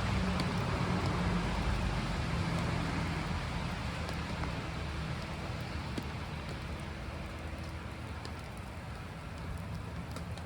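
Steady hiss of wet snow and rain falling, with a few faint ticks of drops, over a low rumble that slowly fades.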